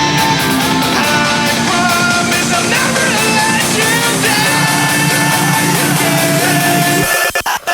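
Rock music with a sung, partly shouted vocal over guitar, steady and loud, breaking up in a few quick dropouts near the end.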